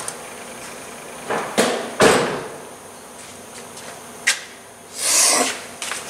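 A few sharp knocks and clunks of tools and parts being handled, the loudest about two seconds in, then a brief scraping noise near the end.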